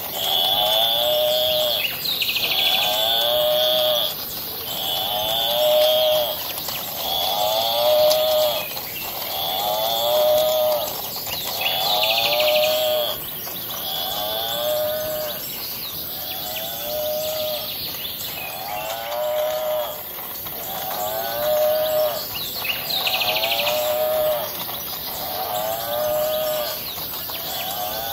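Battery-operated walking toy cow playing its recorded moo over and over from its speaker, the same short falling call about every two seconds. A high thin steady tone sounds between the calls.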